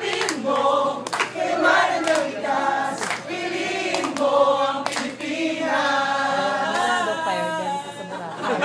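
A group of performers singing a song together, with a sharp percussive hit every couple of seconds.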